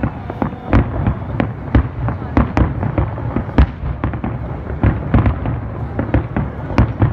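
Aerial firework shells bursting in a dense barrage, with irregular sharp bangs about two a second over a continuous rumbling, crackling wash.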